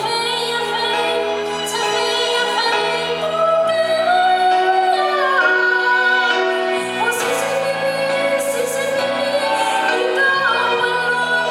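A woman singing a slow song, holding and sliding between long notes over a steady instrumental accompaniment.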